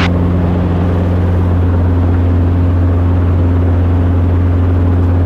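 Small helicopter's engine and main rotor running at flight power, a steady low drone heard from inside the open cockpit, as it lifts off uneven grass and hover-taxis a short way to a more level spot.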